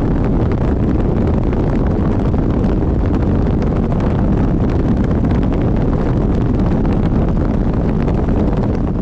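Steady, loud wind rush buffeting the microphone of a bass boat running at speed across open water, with the boat's run underneath it.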